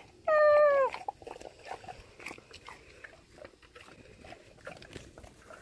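Alaskan Malamute chewing and crunching a raw turkey wing, bone and all, in small irregular crunches. About half a second in comes a short, loud, high squawk-like call that drops slightly in pitch as it ends.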